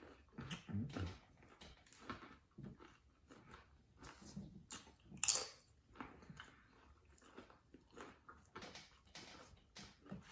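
Close-up eating of corn tostadas with Rotel dip: irregular crunching bites and chewing clicks, with one louder crunch about five seconds in.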